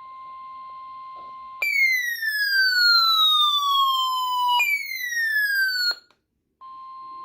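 A weather alert radio sounds its warning alarm. A steady alert tone gives way to two falling siren-like whoops, the second one shorter. After a brief gap the steady tone starts again near the end. The alarm announces an incoming flash flood warning.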